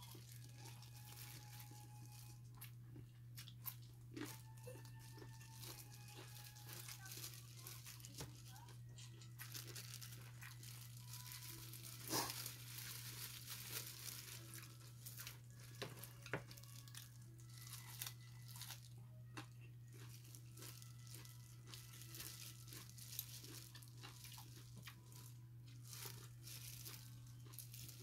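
Quiet eating sounds: chewing and crunching of food eaten by hand, with scattered crackles and crinkles of thin plastic food gloves. A sharp click stands out about twelve seconds in, over a steady low hum.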